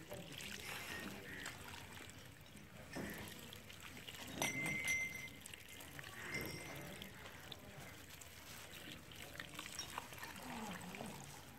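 Water running from the open end of a garden hose, trickling and splashing onto a small toy car and the grass.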